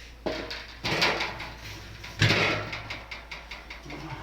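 Handling noises: a few knocks and scrapes, the loudest about two seconds in.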